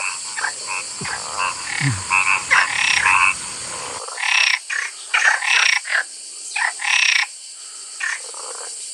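Frogs croaking in quick, irregular runs of short calls, with a steady high hiss behind them.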